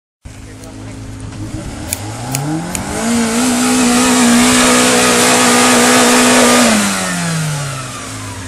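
Suzuki Samurai engine revving up under load as the 4x4 climbs through mud. It holds high revs with a steady hiss for about four seconds, then eases off and the pitch falls away near the end.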